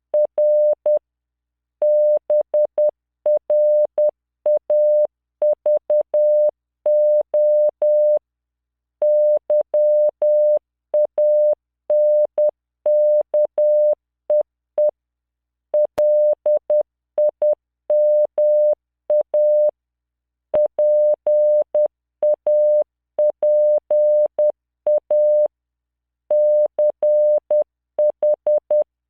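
Morse code practice tone from the LearningMorse training software: a single 600 Hz beep keyed on and off in dots and dashes at 10 words per minute, with short pauses between characters.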